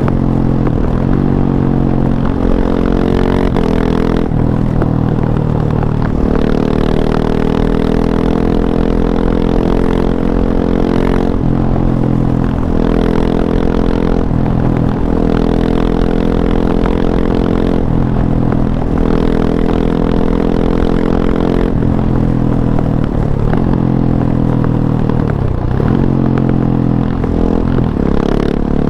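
KTM 690 SMC R's single-cylinder engine running through an Arrow Race-Tech exhaust with the dB killer fitted, at steady revs with brief dips in pitch every few seconds.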